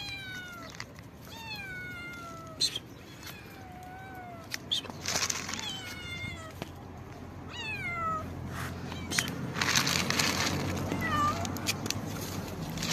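Young stray kittens meowing over and over, each meow a high call that falls in pitch. Near the end a louder rustling of a plastic bag as dry cat food is poured out for them.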